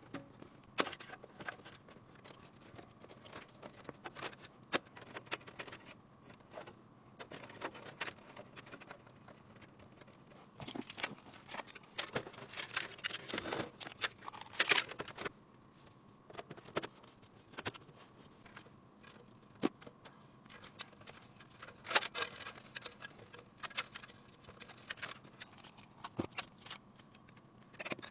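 Irregular clicks, taps and short rustles of computer parts being handled and fitted during a PC assembly, busiest about halfway through and again near the end.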